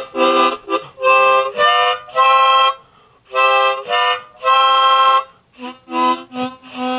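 Harmonica playing a tune in chords, short notes and longer held ones, with a brief pause about three seconds in.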